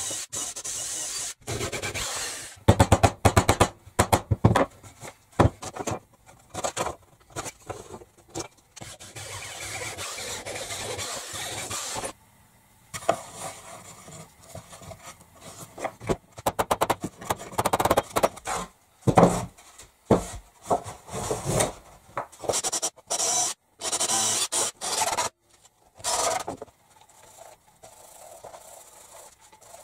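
Wood being worked by hand: sandpaper rubbing and rasping along plywood edges in short runs that start and stop abruptly, with a power drill driving into a wooden board at the very start.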